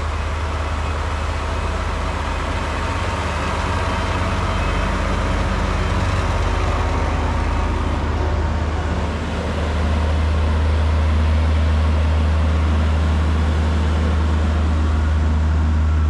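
Heavy diesel engines of a John Deere tractor with a disc packer roller and a Volvo wheel loader running steadily as they drive over a maize silage clamp to compact it. From about ten seconds in the engine drone is louder and deeper, with the wheel loader close by.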